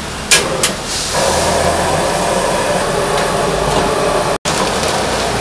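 Gas stockpot burner being lit: two sharp clicks, then the flame hissing steadily under the pot. There is a split-second gap near the end.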